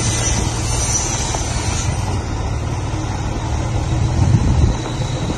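Diesel truck engine running at low speed as the tractor unit manoeuvres a box semi-trailer, a steady low rumble with a short louder swell about four seconds in.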